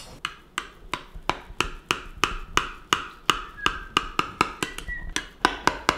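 A knife clicking against a glass baking dish as it cuts a tiramisu, sharp taps in a steady rhythm of about three a second.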